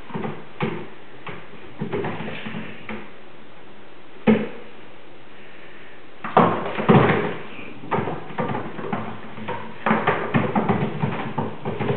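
Kittens running and scrabbling on a roof overhead, making irregular thumps and scuffs. There is one sharp thump about four seconds in, and busier flurries of thuds around six to seven seconds and again from about ten seconds.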